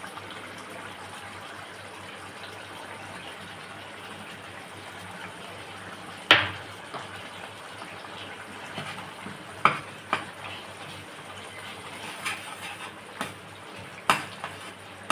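Chicken curry bubbling in an open pot, with a spoon knocking against the pot several times as it is stirred; the loudest knock comes about six seconds in.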